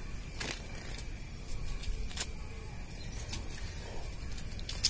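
Fish being picked up by hand off wet concrete: a few faint sharp taps over a low rumble and a steady high-pitched whine.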